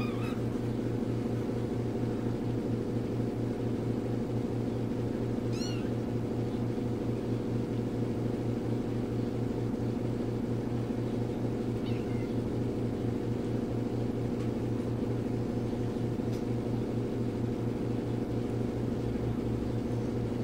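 Young kittens giving three brief, high mews: one at the start, one about six seconds in and one about twelve seconds in. A steady low hum runs underneath.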